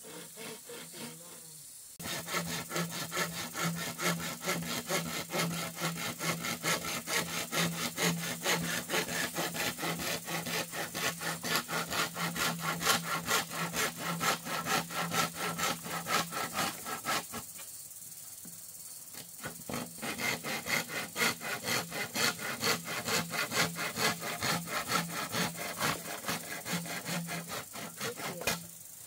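Hand saw cutting through a green bamboo culm in quick, even back-and-forth strokes, starting about two seconds in, pausing for about two seconds in the middle, then resuming until near the end.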